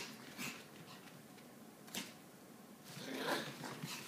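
A Maltese dog's paws scuffing and rustling on a yoga mat as it spins: a short scuff just after the start, a sharp scrape about two seconds in, and a longer rustle near the end.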